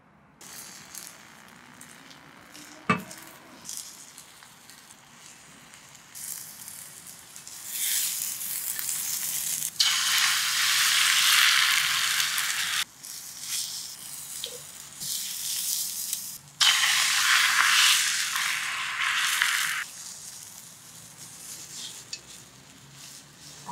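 Beaten egg sizzling in a hot rectangular tamagoyaki pan, with two loud spells of sizzling as fresh egg mix goes in, and quieter sizzling between. A single sharp knock sounds about three seconds in.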